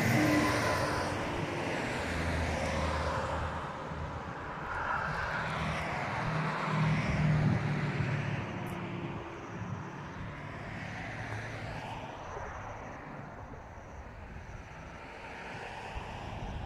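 Road traffic: motor vehicles passing on the road, swelling as they go by, loudest about seven seconds in, then fading.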